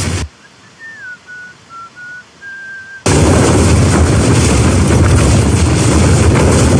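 A faint whistle of a few wavering notes, then, about three seconds in, strong wind suddenly buffeting a tent: a loud, heavy rush of gusts, rumbling on the microphone.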